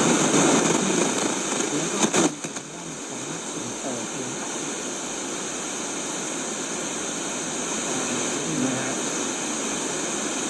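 Sony ICF-SW12 shortwave radio's speaker giving steady static hiss with no station coming through. A few sharp clicks come about two seconds in, and the hiss then carries on more quietly.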